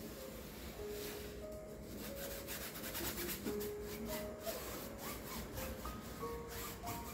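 Flat paintbrush scrubbing acrylic paint across a canvas in quick back-and-forth strokes, over soft background music playing a simple melody.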